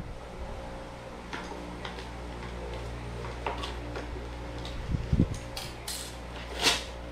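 Scissors snipping and a thin plastic packaging bag crinkling as it is cut and handled, with a couple of low knocks about five seconds in as the scissors are set down on the tile floor. The loudest moment is a short crinkle of the plastic near the end, over a steady low hum.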